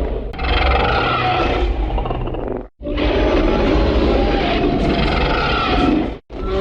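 Female MUTO creature roar sound effect: two long, loud calls over a deep low rumble, each cut off suddenly. A third call begins near the end.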